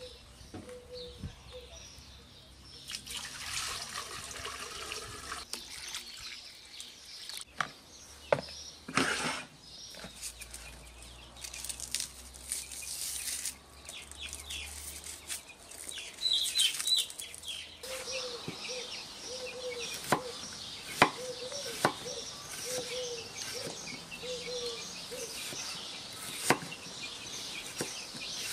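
Onions being peeled in a bowl and sliced with a knife on a wooden cutting board: scattered sharp knife clicks and knocks, rustling, and some wet, liquid handling sounds.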